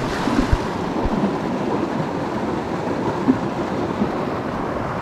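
Waterfall rushing: a steady, dense noise of falling water, with a few brief low thumps.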